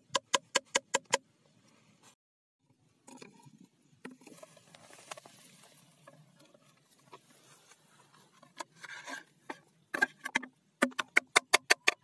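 Quick runs of sharp hollow knocks of a bamboo tube and stick, about five a second, near the start and again near the end. Softer rustling of dry straw comes in between.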